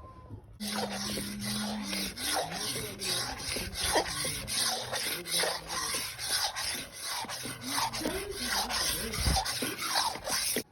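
Rhythmic rasping strokes, about two a second, that start and stop abruptly.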